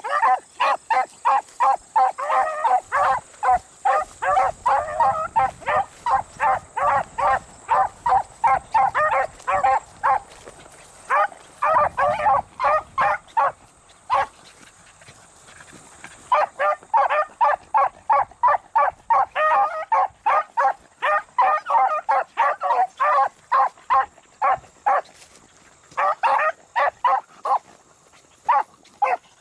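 Beagles baying as they trail a rabbit by scent: a fast run of short, repeated barks, about three a second. The barking breaks off for a couple of seconds about halfway through and again near the end.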